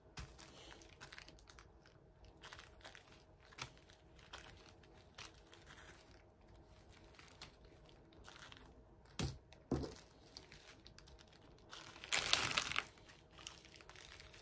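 Small plastic bags of square diamond-painting drills rustling and crinkling as they are handled and laid on the canvas, with faint taps, two light knocks about two-thirds of the way through, and a louder crinkle near the end.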